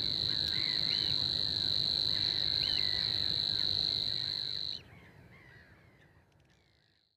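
Savi's warbler reeling: a continuous high-pitched buzzing trill that stops abruptly about five seconds in. Other birds call briefly behind it, and then the background fades away to silence.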